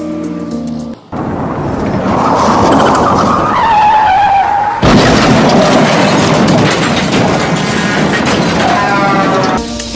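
Go-kart engines running on a track, with a whine that rises and falls as the karts rev, mixed with tyre and track noise. The sound cuts abruptly about halfway through to more of the same. Background music plays briefly at the start and comes back near the end.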